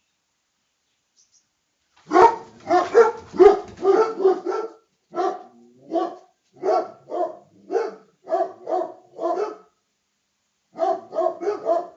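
A dog barking: silent at first, then a fast run of barks about two seconds in, steadier barks about two a second, a short pause, and another quick run of barks near the end.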